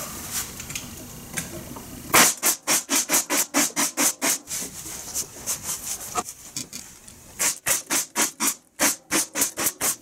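Pneumatic staple gun shooting staples into the joints of wooden beehive frames held in an assembly jig. It fires in two quick runs of sharp shots, about five a second, one starting about two seconds in and the other near the end.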